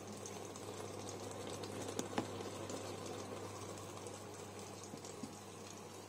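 Cookology CMDW2 tabletop dishwasher in a rinse, water spraying down from above and splashing steadily over the dishes inside the closed machine, over a steady low hum. A single short knock about two seconds in.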